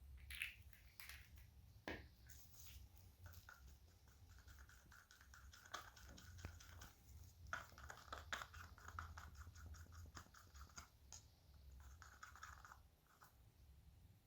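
Faint scraping with scattered light clicks: a small stick stirring pigment into casting resin in a small mixing cup, with the odd tap against the cup's side.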